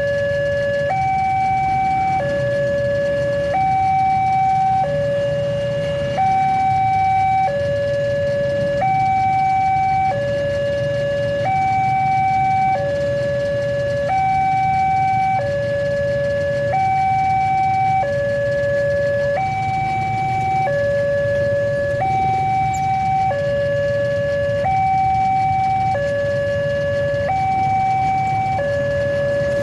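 Railway level-crossing warning siren sounding a slow two-tone alarm, switching between a higher and a lower note about every second and a quarter, over a low rumble.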